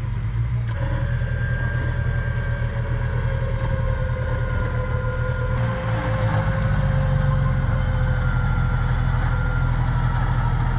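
Off-road vehicle engine running steadily at low revs, with a thin whine that comes in about a second in and slowly falls in pitch.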